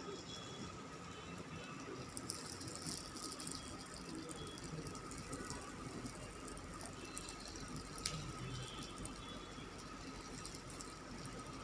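Faint kitchen handling sounds, a pan and food being moved about, with small clicks and rustles and one sharp click about eight seconds in, over a steady faint hum.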